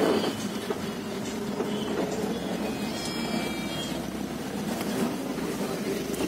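Steady engine and road noise heard inside a moving minibus cabin.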